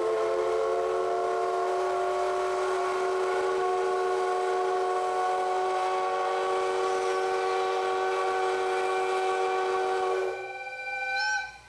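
Steam whistle of the C58 239 steam locomotive: one long, loud blast of several tones sounding together that lasts about ten seconds, then a short second blast near the end. This is the whistle signal given at the station before the train departs.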